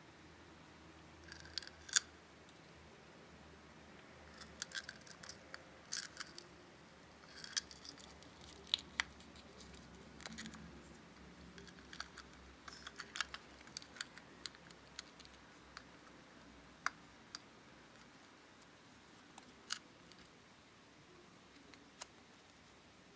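Small plastic Tamagotchi-shaped candy case being handled and pried open: scattered sharp plastic clicks and taps, several in quick clusters in the first half, then single clicks a few seconds apart.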